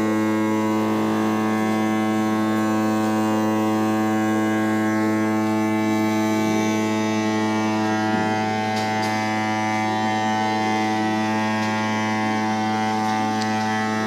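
Handmade model vacuum cleaner running: a 12-volt DC motor spinning a CPU fan blade, giving a steady, even hum.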